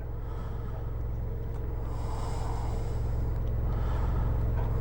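A car engine running with a low, steady rumble that grows slightly louder.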